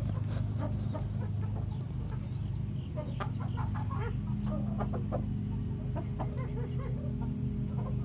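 Chickens clucking, a rooster and hen making short scattered calls, over a steady low hum.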